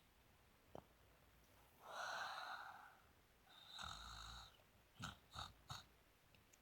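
A pig snoring in its sleep: two drawn-out snoring breaths about two and four seconds in, then three short snorts in quick succession near the end.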